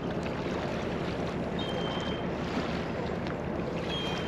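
Steady outdoor wind and water noise, with a faint low hum underneath and a few brief, faint high-pitched tones.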